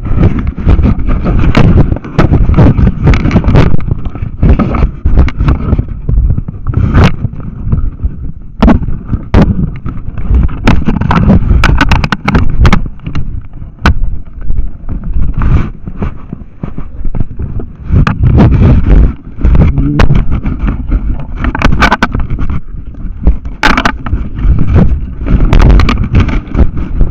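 Handling noise on a trail camera's built-in microphone: loud rubbing and rumbling with many sharp clicks and knocks as the camera is carried and jostled against clothing.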